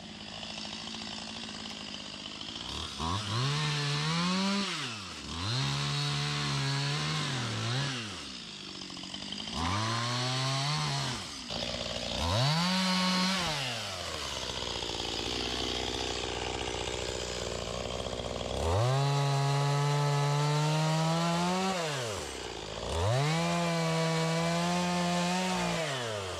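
Chainsaw bucking a freshly felled small tree into pieces, revved up to full speed and let back down to idle about six times as it goes through the cuts.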